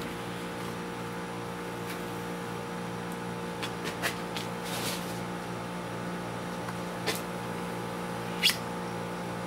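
A few short scrapes and clicks of a utility knife blade working along a vinyl window frame's nail fin, over a steady low hum.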